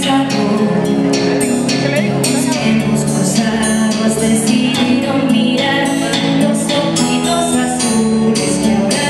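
A woman singing into a microphone over amplified music with a steady beat.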